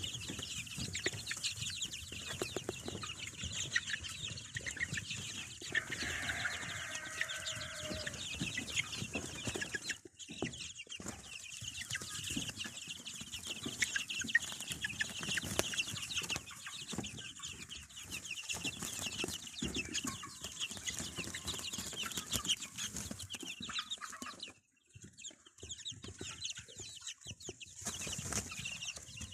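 Chickens: a constant chorus of high-pitched peeping from many chicks, with a lower hen's call about six seconds in. The sound drops out briefly twice.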